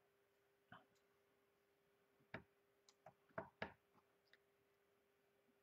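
Light taps and clicks of a clear acrylic stamp block being pressed and tapped onto an ink pad to ink the stamp. There are about eight short, scattered clicks, the loudest a quick pair about three and a half seconds in.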